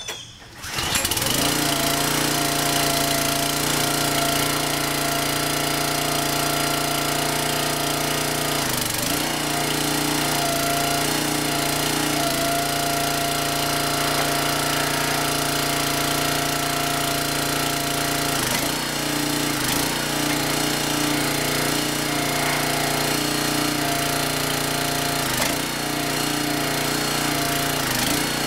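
Huskee 22-ton log splitter's Briggs & Stratton 6.75 single-cylinder engine catching almost at once on a warm start and then running steadily at a constant speed. Its note dips briefly a few times as the hydraulic control lever is worked.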